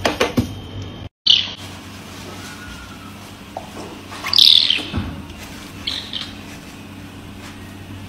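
Caracal kitten giving high, bird-like chirping calls: three short chirps, about a second, four seconds and six seconds in, the middle one the loudest.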